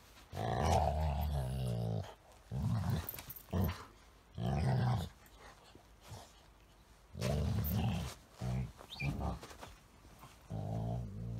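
Golden retriever's low play growls: a string of drawn-out, grumbling 'dog talk' bouts, some brief and some nearly two seconds long, made while wrestling playfully with a small dog rather than in aggression.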